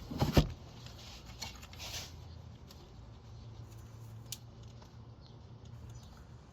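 Hands working a plastic oxygen-sensor wiring connector and its mount: a short cluster of sharp knocks at the start as it is pried loose, then faint clicks and scraping. A faint steady low hum runs underneath.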